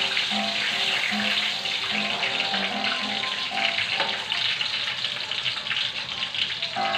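Background music of short repeated notes over a steady crackly hiss of water or cooking.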